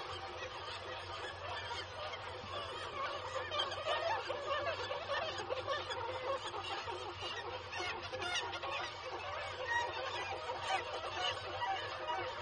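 Nesting colony of black-legged kittiwakes calling, many birds at once in a dense, unbroken chorus of overlapping cries.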